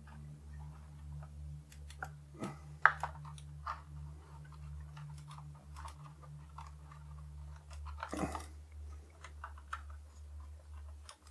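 Scattered small plastic clicks and handling crackles as a cable connector is plugged in and the robot vacuum's plastic parts are fitted together. The sharpest click comes about three seconds in and a brief scraping rustle about eight seconds in, over a steady low hum.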